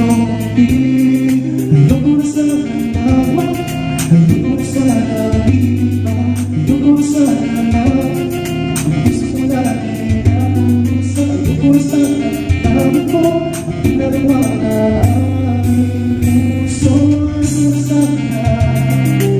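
Karaoke music from a Karavision Pro KP-8800 player: a Tagalog song with guitar and steady bass, and a voice singing the melody.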